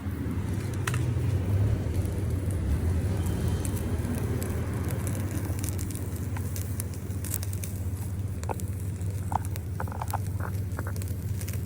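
Japanese black wagyu beef searing over a charcoal fire: crackling, with scattered sharp pops over a steady low rumble.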